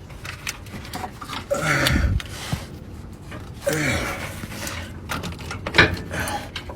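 A man grunting and exhaling with effort three times, falling in pitch each time, while straining to work a heavy AC compressor free by hand, with a sharp knock of parts about two thirds of the way in.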